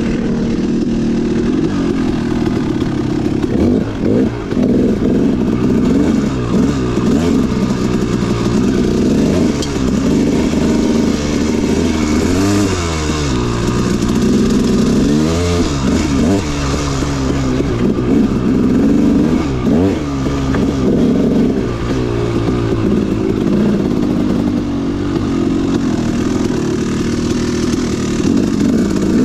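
Dirt bike engine running under constantly changing throttle, its revs rising and falling; twice around the middle the revs drop sharply and climb straight back.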